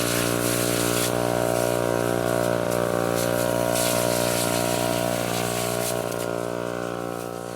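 Portable fire pump engine running steadily while water sprays from a fire hose, fading near the end.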